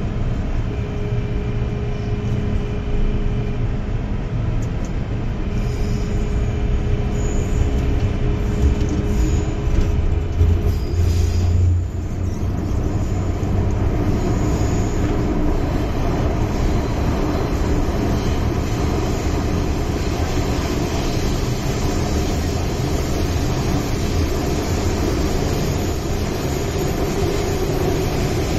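Interior of an MTR M-Train (Metro-Cammell electric multiple unit) pulling out and running in a tunnel. A steady motor hum turns into tones that rise in pitch as the train gathers speed, then gives way to an even rumble of wheels on rail.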